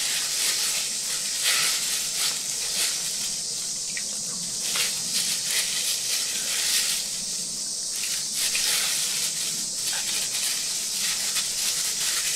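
Disposable plastic gloves crinkling and rustling in irregular crackles as hands squeeze and wring red shiso leaves soaked in plum vinegar over a stainless steel bowl.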